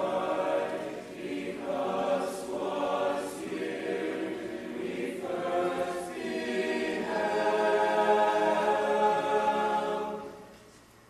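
Band members singing a slow chorale a cappella in harmony, with held chords and audible 's' consonants. The singing is released about ten seconds in and the hall's reverberation dies away.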